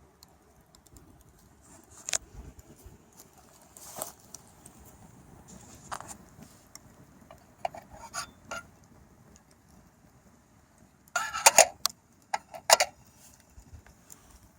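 Metal camping kettle and its parts clinking and clattering as they are handled: scattered knocks and clinks, with a louder burst of clatter about two-thirds of the way in.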